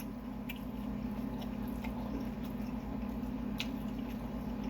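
A person chewing food close to the microphone, with a few faint short clicks over a steady low hum.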